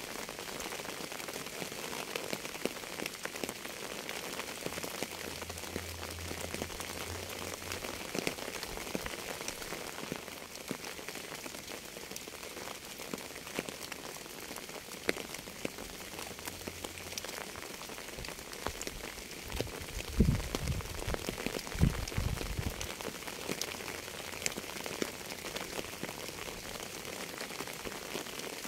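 Steady rain, with a dense patter of individual raindrops hitting a surface. Two low thumps come about two-thirds of the way through.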